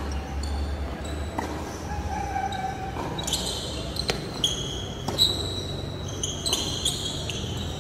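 Tennis rally on an indoor hard court: a tennis ball is struck by rackets and bounces, several sharp hits over the few seconds, the loudest about five seconds in. The hall echoes, and short high squeaks come in between the hits.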